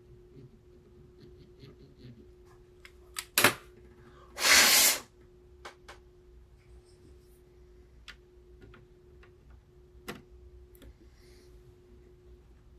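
Small clicks and taps of hand tools at a repair bench over a steady hum, with one loud sharp click a little past three seconds in and, about a second later, a short loud hiss lasting under a second.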